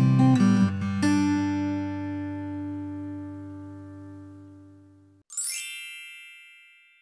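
Intro music on plucked acoustic guitar: a few quick notes, then a chord left to ring and fade until it cuts off about five seconds in. A bright chime-like tone then sounds and fades out.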